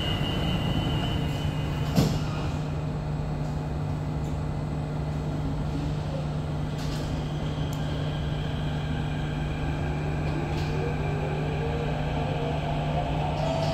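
Inside an SMRT CT251 metro train car: a steady low hum over a wash of running and air-handling noise, with a single sharp knock about two seconds in. A rising whine begins in the last few seconds.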